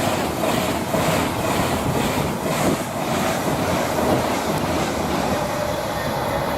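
Class 390 Pendolino electric train passing at speed, a steady loud rush of wheel and air noise.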